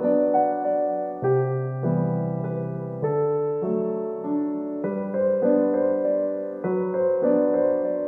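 Background piano music: chords struck and left to ring and fade, changing about once a second.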